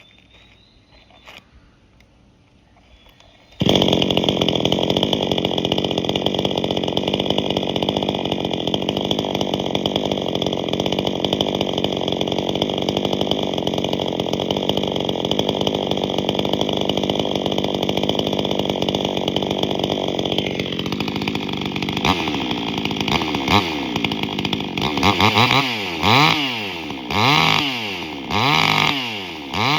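Vevor gas chainsaw running with its exhaust catalyst cleaned out, open-piped with a sharp pop. It starts running about four seconds in at a steady high speed, drops to idle after about twenty seconds, then is revved up and let back down several times near the end.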